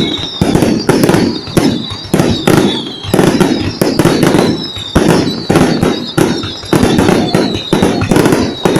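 Aerial fireworks display: shells bursting in rapid succession, a dense run of sharp bangs several a second with bigger booms among them.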